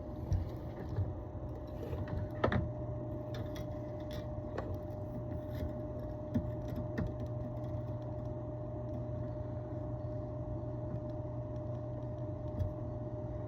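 Steady electrical hum of bench equipment with a faint constant tone, and a few light clicks and taps in the first few seconds as a relay leg on the fuse-box circuit board is resoldered.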